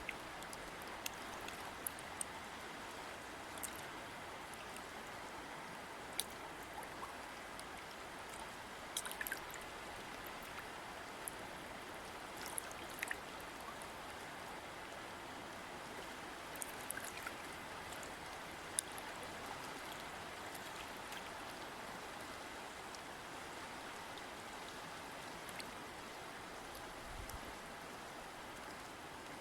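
A river or stream flowing steadily over rocks, a constant rushing of water with scattered small splashes and droplet ticks.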